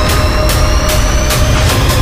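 Background music with a steady beat of about two strokes a second over held tones and a heavy bass.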